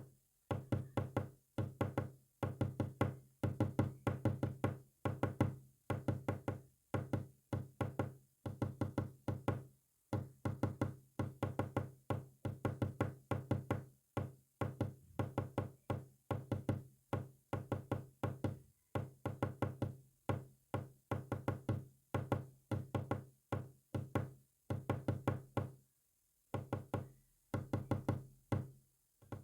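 Morse code sent as rapid, short, pitched knocking clicks, the strokes coming in quick groups with brief pauses between them and a longer pause near the end.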